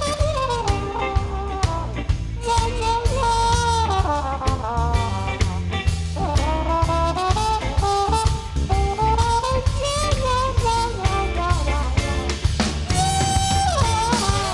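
Live jazz-blues band: a trumpet solo whose notes bend and slide in pitch, over bass and drum kit. The trumpeter works a plunger mute over the bell.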